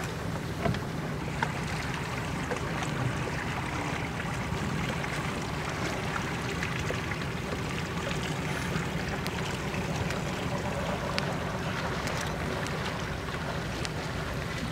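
Sea water lapping and sloshing against rocks and an inflatable boat, over a steady low hum, with a few faint small clicks and splashes.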